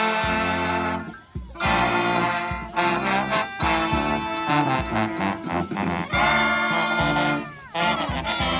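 Street brass band playing: horns in harmony over a bass line of separate notes, with a short break about a second in and the horns sliding down in pitch into another break near the end.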